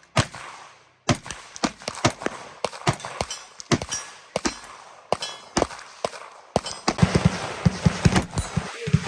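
Rifle fire on a shooting range: a long string of sharp shots, about two or three a second at first, coming faster and closer together from about seven seconds in.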